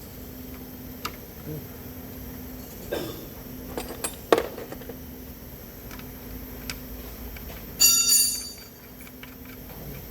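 Metal hand tools clicking and knocking against car parts during refitting of the water pump, with a sharp knock about four seconds in and a bright ringing metallic clang about eight seconds in.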